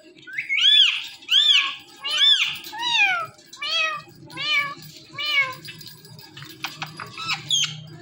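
Rose-ringed (Indian ringneck) parakeet imitating a cat's meow: about seven meows in a row, each rising and falling in pitch. Near the end come a few soft clicks and a short high squawk.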